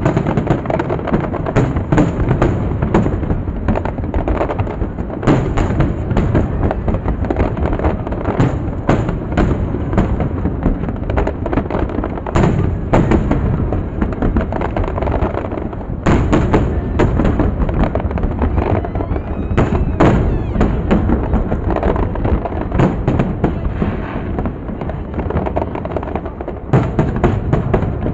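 Large aerial fireworks display: a dense, continuous run of overlapping bangs and booms. Especially heavy bursts come about five, twelve, sixteen, twenty and twenty-seven seconds in.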